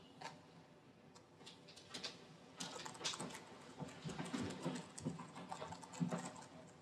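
Faint, rapid clicking of typing on a laptop keyboard, growing busier a few seconds in, with a few soft footsteps.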